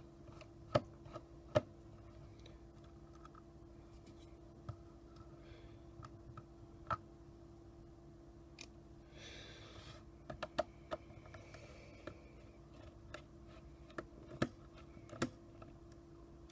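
Sparse small clicks and ticks as a fine #000 Phillips screwdriver works the tiny case screws out of a plastic camcorder body, with a brief soft rustle about nine seconds in, over a faint steady hum.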